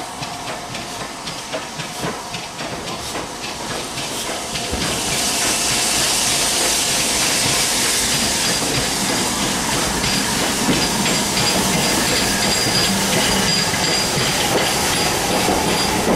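LMS 8F 2-8-0 steam locomotive approaching and drawing past at low speed. Its steam hiss swells about five seconds in, and the sound grows louder as the engine comes alongside.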